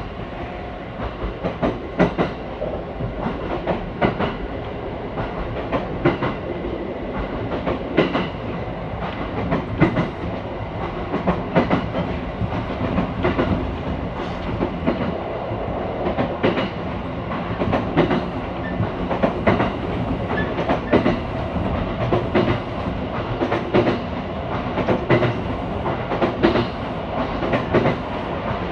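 A train running, heard from inside the carriage: a steady rumble of wheels on the rails with sharp clacks every second or two as the wheels cross rail joints.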